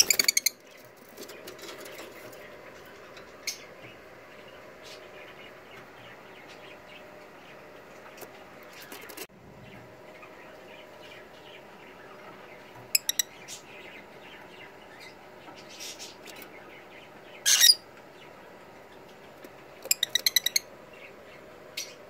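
Lovebirds giving short strings of sharp, rapid chirps: a quick run at the start, three chirps about halfway through, one loud longer squawk a few seconds later, and another quick run near the end.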